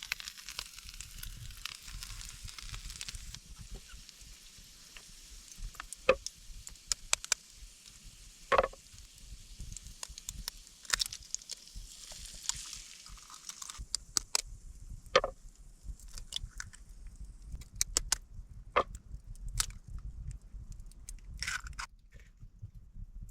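Campfire crackling with a faint sizzle and scattered sharp pops and clicks; the sizzle stops about 14 seconds in, leaving only the pops.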